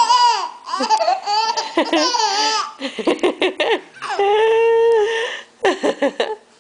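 Infant laughing while being tickled: repeated high-pitched giggles and squeals in short bursts, with one longer held squeal about four seconds in.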